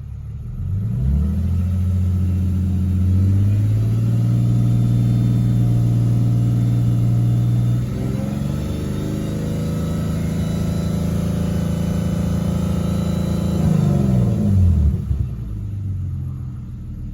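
A 2015 Lexus GS350's 3.5-litre V6 is revved up from idle about a second in and held at a steady raised speed. It rises a little further around halfway, then is let back down to idle near the end. The engine is held up to compare the response of the bank 1 and bank 2 air-fuel sensors, on a car with a known exhaust leak on bank 1.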